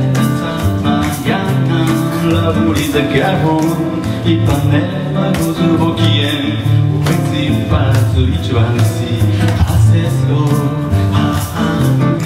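A man singing to his own acoustic guitar, strummed in a steady rhythm, amplified through a small PA.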